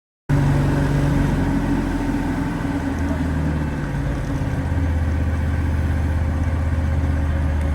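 Wood-Mizer LT40 Super sawmill's engine running steadily, cutting in suddenly just after the start; its low tone shifts about halfway through.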